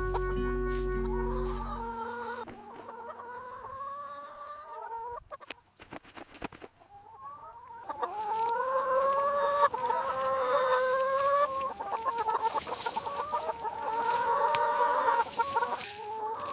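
Chickens clucking in a series of drawn-out, wavering calls, sparse in the middle with a few sharp clicks, then denser near the end. Background music with low held notes fades out in the first two seconds.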